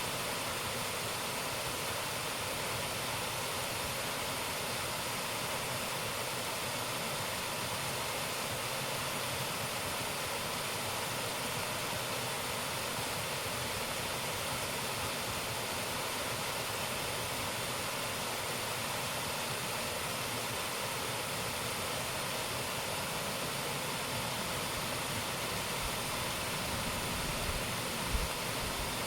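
Waterfall: a steady, unbroken rush of falling water, with a few low bumps near the end.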